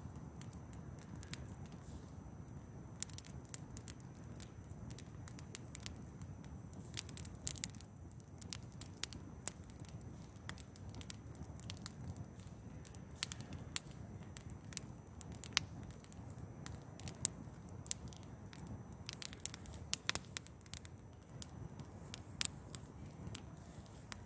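Wood fire crackling: irregular sharp pops over a low steady rumble.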